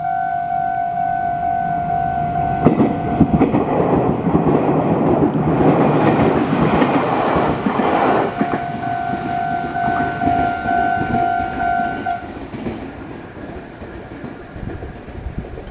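A Meitetsu train passes over a Japanese level crossing, its wheels clacking over the rail joints, while the crossing's electronic warning bell rings steadily. The train is loudest from about three to eight seconds in and drowns the bell, and the bell stops about twelve seconds in as the train noise fades.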